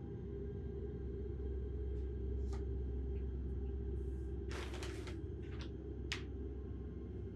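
Kitchen cupboard doors and their contents being handled: scattered light clicks and knocks, a short rattling clatter about halfway through, then two or three sharper clicks, over a steady low hum.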